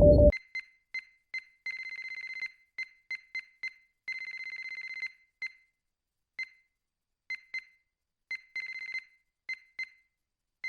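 Star Trek computer-console beeping: a run of short, high electronic beeps all at one pitch, broken three times by a longer rapid warbling trill at the same pitch.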